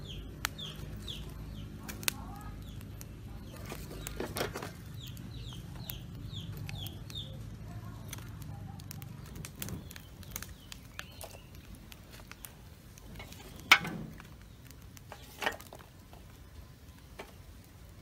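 Chickens clucking, with runs of short, high, falling peeps, over a low steady hum that stops about halfway through. A sharp knock comes just past the middle and a smaller one a couple of seconds later.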